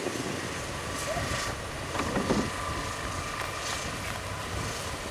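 Wind rumbling on the microphone, with a couple of brief louder rustling noises about one and two seconds in.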